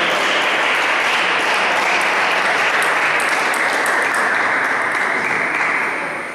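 Audience applause, dense and steady, dying away near the end.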